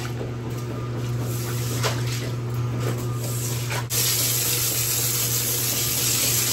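A steady machine hum under a hiss of spraying, rushing water. About four seconds in the hiss turns suddenly louder and brighter.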